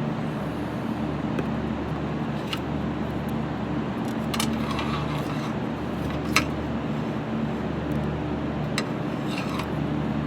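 A vehicle engine idling with a steady low drone, with a few sharp metallic clicks and taps spread through it, the loudest about six seconds in.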